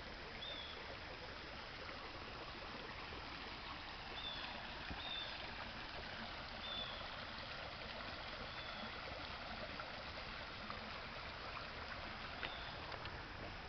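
Faint, steady outdoor ambience: an even rushing hiss, with a few short, high chirps scattered through it.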